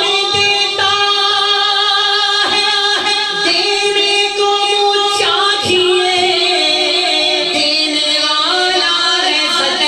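A man singing a naat into a microphone, drawing out long held notes that waver and slide between pitches.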